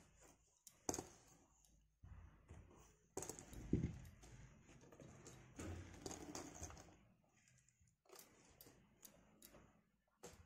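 Faint handling noises as thread is wound around a plastic clipboard: scattered light clicks and taps with soft rustling, and a louder knock about four seconds in.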